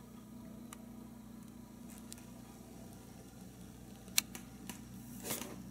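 Quiet room tone with a steady low hum, broken by a few faint scattered clicks, the sharpest about four seconds in, and a short rustle near the end.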